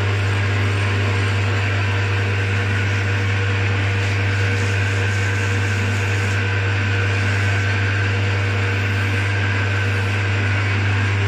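Metal lathe running with a steady hum while abrasive paper is held against the spinning rear axle shaft of a Massey Ferguson 240, giving a constant hiss. This is the finishing and polishing of the machined bearing and seal seat on the welded axle.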